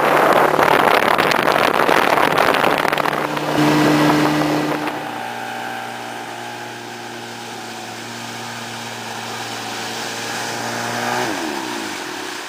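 Tohatsu 35 hp outboard motor running at speed on a small boat. For the first few seconds it is heard from on board under loud rushing wind and water. After that it is a steady, quieter drone, and its pitch drops near the end.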